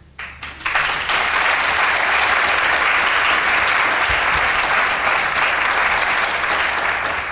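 Audience applauding: a few scattered claps at first, swelling within the first second into steady, full applause.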